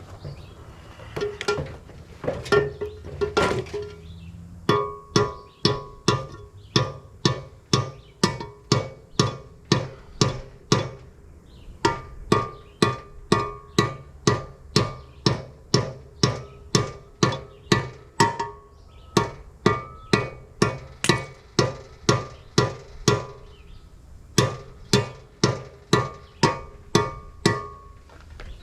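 Hammer blows on a Ford 9-inch steel rear axle housing, banging out a dent. The blows come about two a second in four runs with short pauses between, each one ringing with a metallic tone.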